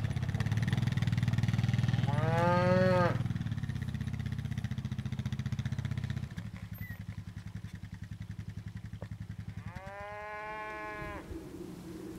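Two moos from Galloway cattle, the first about two seconds in and the second near the ten-second mark, over a quad bike's engine. The engine runs steadily, then drops to a quieter, pulsing idle about six seconds in.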